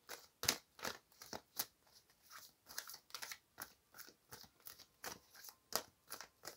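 A deck of cards being shuffled by hand: faint, irregular card flicks and slaps, several a second.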